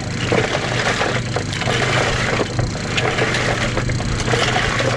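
Oyster shells scraping, crunching and clicking against each other as oysters are handled, over a steady low hum.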